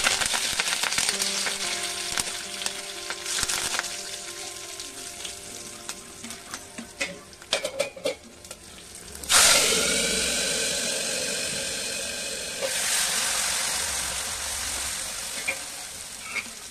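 Curry leaves sizzling as they hit hot oil with mustard seeds and garlic in a steel kadai, with a steel ladle stirring and clicking against the pan. About nine seconds in, a loud new burst of sizzling as the dal meets the hot tadka; it dies away slowly, with another surge a few seconds later.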